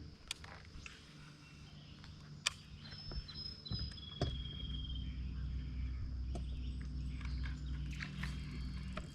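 Outdoor ambience with a few sharp clicks and faint high insect-like tones, and a low steady hum that sets in about four seconds in.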